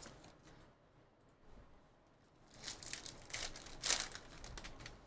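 Foil wrapper of a Panini Prizm Football hobby pack being torn open and crinkled by hand: a few short rips and rustles about two and a half to four seconds in, the loudest near four seconds.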